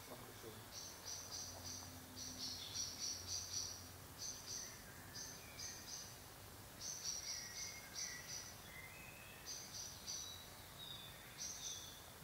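Crickets chirping: groups of rapid high-pitched pulses repeated in bursts with short pauses between them, and faint short bird calls underneath.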